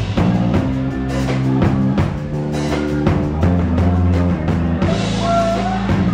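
Live blues-rock trio playing an instrumental passage: electric guitar, electric bass and a Ludwig drum kit, with a note bending in pitch about five seconds in.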